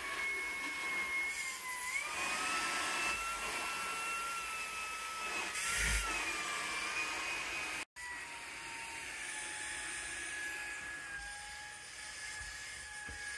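Shark Stratos cordless stick vacuum running, a steady motor whine over airflow rush. The whine steps up in pitch about two seconds in and wavers near six seconds. It cuts out for an instant about eight seconds in and comes back slightly lower, sinking slowly toward the end.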